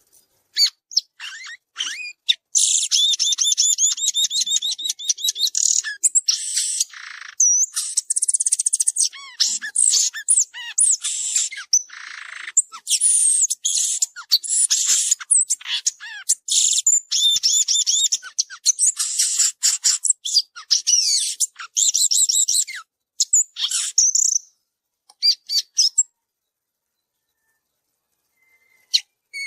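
Many birds chirping and trilling in a dense, rapid, high-pitched chorus, thinning to scattered calls about twenty-four seconds in and then falling silent.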